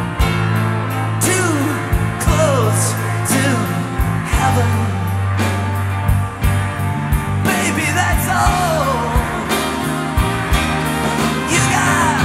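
Background rock music with a steady drum beat under a sustained bass and a gliding lead melody.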